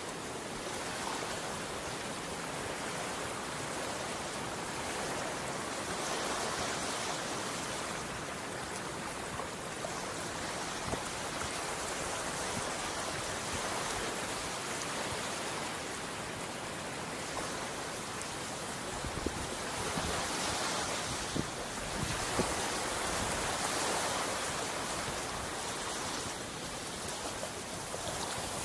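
Gentle surf washing onto the beach: a steady hiss of water that swells and eases every few seconds as small waves break and run up the sand.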